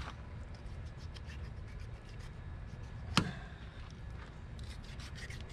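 Knife slicing and scraping under an alligator's hide while skinning the tail: a run of short rasping scrapes, with one sharp click about three seconds in.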